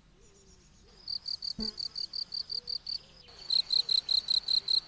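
Cricket-chirping sound effect: a steady run of short, high chirps about five a second, starting about a second in, pausing briefly and returning louder. It is the comic 'crickets' cue for an awkward silence after a joke falls flat.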